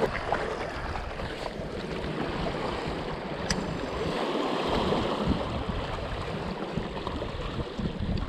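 Sea washing against shoreline rocks: a steady hiss of moving water with a shifting low rumble. One sharp click about three and a half seconds in.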